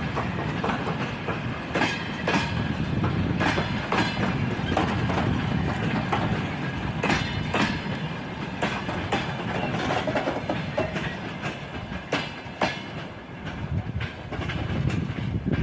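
Passenger train carriage wheels clattering over rail joints: a steady low rumble with repeated sharp clacks.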